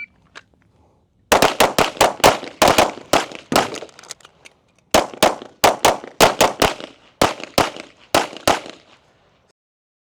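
A timed string of fast pistol shots: a rapid run of sharp cracks starting about a second in, a break of about a second, then a second rapid run that stops near the end.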